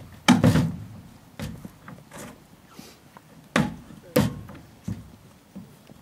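Heavy thumps and clunks on a horse trailer while a horse is being loaded, about five in all. The loudest comes just after the start, and two more come close together a little past halfway.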